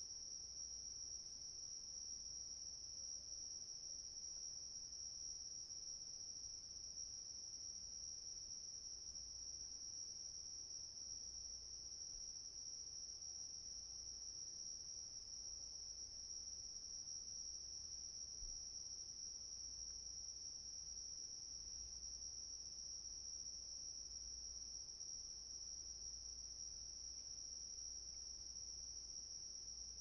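Crickets chirping quietly in a steady, unbroken high chorus.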